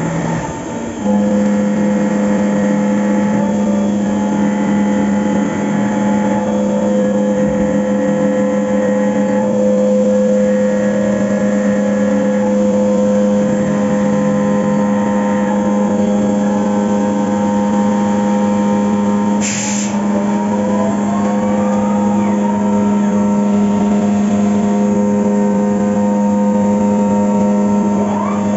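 Fagima Jazz M five-axis CNC mill running a cut: a loud, steady whine with overtones that settles in about a second in, with one short sharp noise near the middle and brief rising tones later on.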